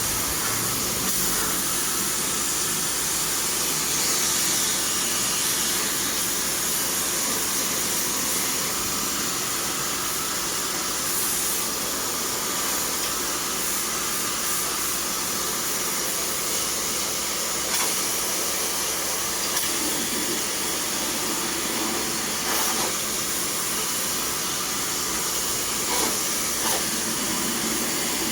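Steady hiss of a high-pressure water spray jet, as used to wash out an air conditioner, with a few faint knocks in the second half.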